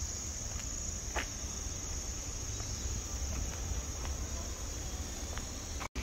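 Steady high-pitched chorus of crickets chirring, with a low rumble underneath and a faint click about a second in.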